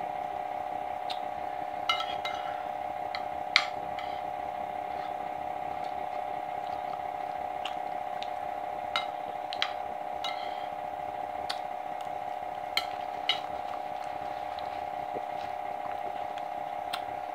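Fork clicking and clinking against a dinner plate now and then during eating, about ten sharp ticks with the loudest about three and a half seconds in, over a steady hum.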